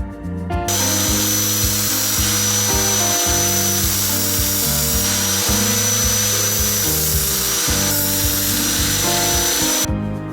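A power tool runs with a steady high whine and hiss, starting under a second in and cutting off near the end, over background music with a steady beat.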